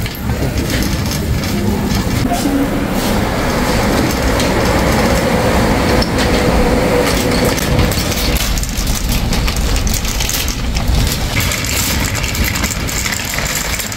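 Wire shopping cart rattling steadily as it is pushed along, its wheels rolling and its metal basket clattering.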